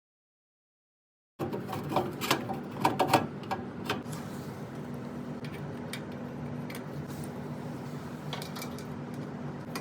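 Dead silence for about a second and a half, then a quick run of clicks and clatter as a hard disk is handled and fitted into a PC case. After that comes a steady low hum with a few light clicks.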